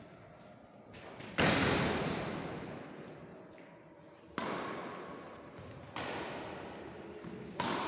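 Badminton rackets hitting a shuttlecock back and forth in a rally, four sharp hits that echo in the large hall, the first the loudest. Two short high squeaks come between the hits.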